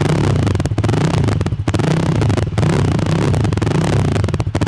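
Jawa 42 Bobber's single-cylinder engine running through aftermarket Razor slip-on silencers, revved in repeated throttle blips a little under once a second. It has a heavy, bassy exhaust note.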